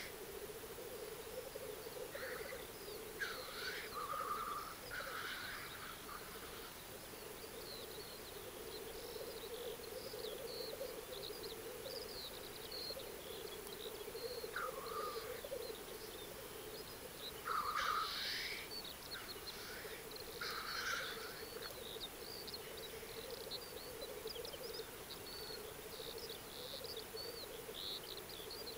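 Black grouse lek: blackcocks' continuous low bubbling coo, with several louder hissing calls, the strongest about 18 seconds in, and high chirping throughout.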